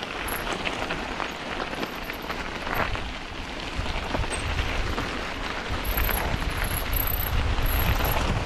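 Giant Revel mountain bike rattling down a rough trail over loose stones: a dense clatter of tyres, chain and frame with the freewheel ticking while coasting. Wind rumble on the microphone grows louder about halfway through.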